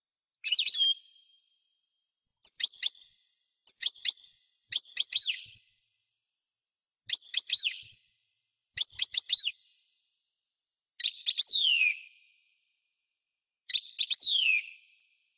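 European goldfinch singing in short, rapid twittering phrases, about eight of them, separated by brief pauses; the last two phrases end in falling whistled notes.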